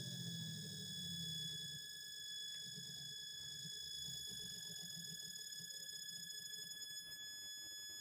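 MS-190 electric motor siren winding down after being switched off: its falling wail has almost died away, and a low rumble from the coasting rotor fades over the first two seconds, then continues faintly. A faint steady high-pitched tone sits over it throughout.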